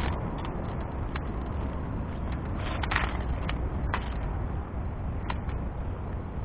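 Strong gusting wind buffeting the microphone with a steady low rumble, broken by scattered short clicks and snaps.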